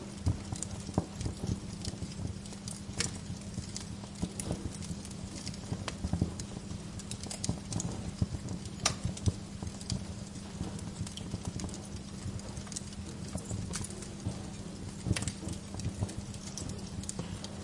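Wood fire in a fireplace crackling, with irregular sharp snaps and pops of varying loudness over a steady low rumble and hum.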